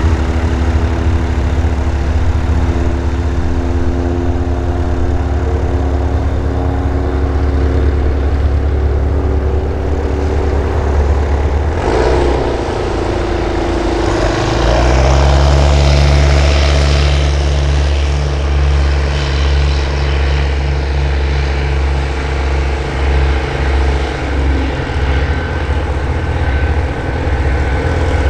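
Sonex homebuilt light aircraft's piston engine and two-blade propeller running at taxi power, a steady drone. About halfway through the note shifts, then rises and gets louder for a few seconds before settling back to a steady drone.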